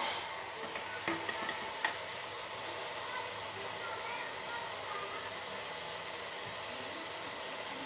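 A spoon clinking and scraping against a pan several times in the first two seconds, then a steady hiss of the jaggery-and-ajwain decoction simmering as it thickens.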